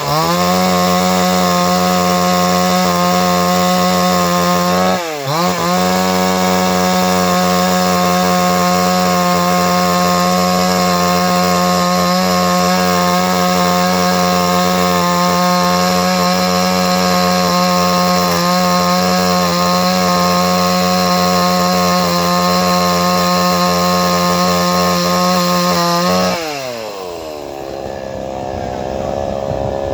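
Two-stroke chainsaw held at high revs, steady, while cutting into a wooden log. The revs dip briefly and recover about five seconds in, then fall away to idle near the end.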